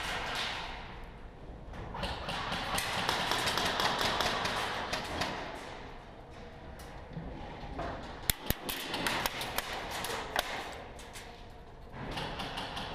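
Scattered sharp cracks of airsoft gunfire, echoing in a large warehouse, with a cluster of irregular shots and hits about two-thirds of the way through.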